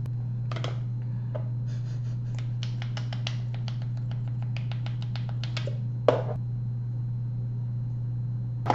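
A rapid run of small plastic clicks for about four seconds as a mascara tube is handled, with one louder knock just after, over a steady low electrical hum.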